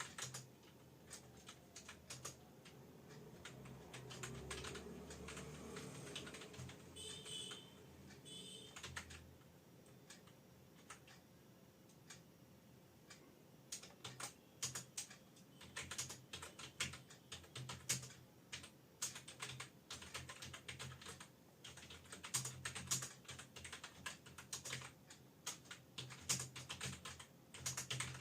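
Fast typing on an external computer keyboard: a run of key clicks that thins out for a few seconds in the middle, then picks up again into dense, quick keystrokes.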